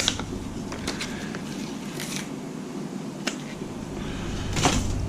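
Hands handling the parts of a disassembled Atari console's keyboard: a few light clicks and two brief rustling scrapes, the loudest near the end.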